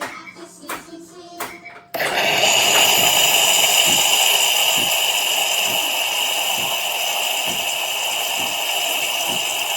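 Espresso machine starting about two seconds in after a few light clicks, then running with a steady loud hiss and a high whine.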